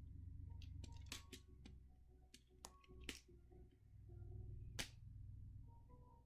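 Plastic magnetic building tiles being handled and snapped together, giving several sharp, separate clicks with quiet gaps between them.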